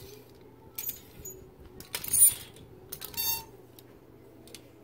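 Clear plastic clothes hangers sliding along a metal clothing rack as garments are pushed aside: three short bursts of hooks scraping and clicking on the rod, the loudest about two seconds in.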